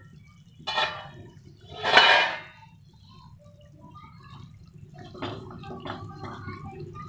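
Thick tomato-onion masala gravy bubbling and sizzling in a kadhai on a gas burner over a low steady hum, stirred with a wooden spatula. Two louder clatters come about one and two seconds in, the second the loudest.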